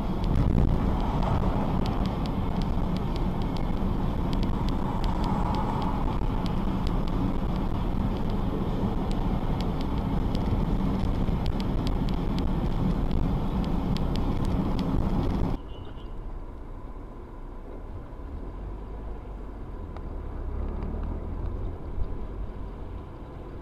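Car driving, heard through a dashcam's microphone: a steady rumble of road and engine noise with many faint ticks. About fifteen seconds in it drops suddenly to a quieter low rumble from another car, with a single short knock near the end.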